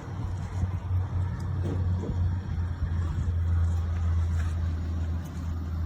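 Gas pressure washer engine running at a steady speed, with a low, even drone.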